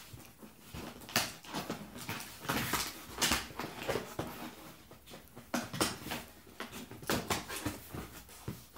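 Scissors slitting the packing tape on a cardboard box, then the box flaps pulled open: a long run of sharp scrapes, rips and cardboard rustles.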